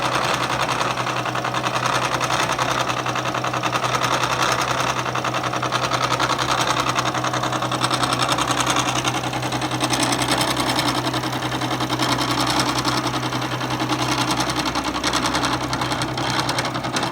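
Bridgeport vertical milling machine taking a steady power-fed cut across a gear rack with a six-insert carbide face mill: a continuous fast chatter of the inserts biting the metal over the steady hum of the spindle motor.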